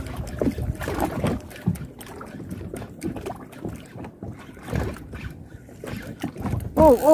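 Wind and boat noise on the microphone with irregular knocks and rustles of a spinning rod and reel being jigged. A short, wavering, high-pitched call comes near the end.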